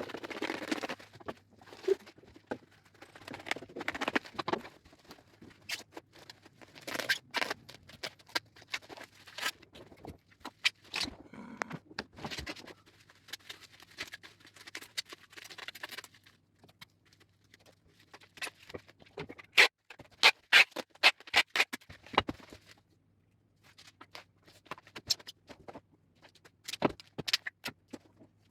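A parcel being packed by hand: plastic packaging rustling and packing tape being pulled off the roll and pressed down, with scattered sharp clicks and crackles and a quick run of louder clicks about twenty seconds in.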